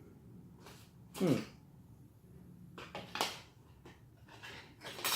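Brief rustles and crinkles as parts packaging is handled, several short bursts over a few seconds. A short vocal sound that falls in pitch comes about a second in.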